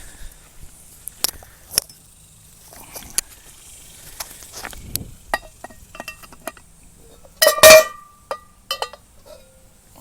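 Cast-iron Dutch oven and its lid being handled on the charcoal: scattered metal clinks and knocks, with one loud ringing clang about two-thirds of the way through.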